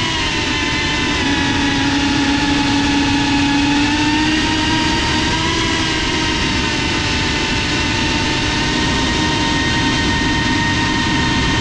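FPV racing drone's brushless motors and propellers whining steadily as it flies, a stack of high tones that drift slightly up and down in pitch.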